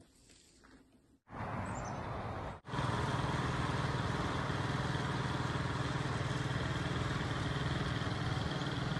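A steady, even motor-like drone with a low hum, starting after about a second of near silence and breaking off briefly once before running on.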